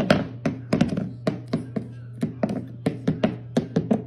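A cat pawing at its empty food bowl, knocking it against a wooden floor in a quick, irregular run of knocks, about five a second: the cat is demanding a refill.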